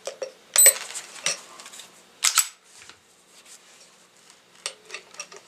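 Sharp mechanical clicks and small handling taps as a trigger pull gauge is set on a Kahr P380 pistol's trigger. Two louder clicks come about half a second and two seconds in, with lighter ticks near the end.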